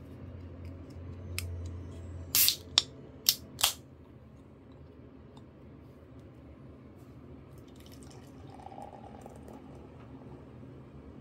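Beer being opened and poured into a glass: four sharp cracks and clicks in quick succession, then a fainter pour about eight seconds in.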